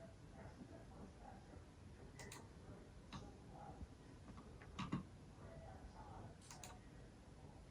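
Near silence: faint room tone with a few scattered faint clicks, irregularly spaced, the loudest about five seconds in.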